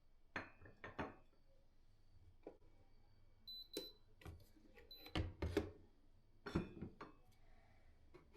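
Household objects being handled: about ten light clicks and knocks at irregular moments, with two brief high tones near the middle.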